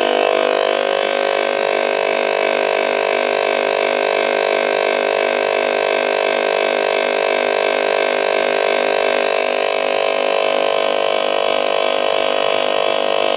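Electromagnetic field picked up by a hand-held copper-wire loop antenna and played through a small portable amplified speaker: a loud, steady electric buzz with many overtones and a regular pulsing about three times a second.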